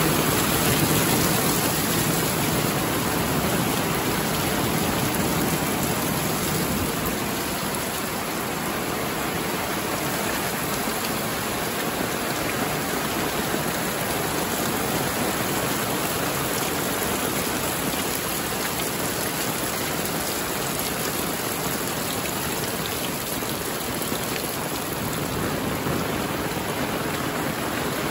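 Heavy rain falling steadily: a dense, even hiss that is a little fuller and louder in the first few seconds, then holds steady.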